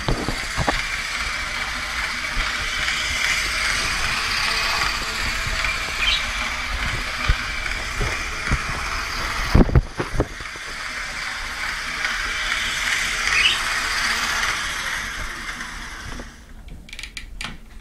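Toy train running round its track, a steady mechanical whirr and rattle with a few short squeaks and a knock about ten seconds in; the running sound dies away about sixteen seconds in.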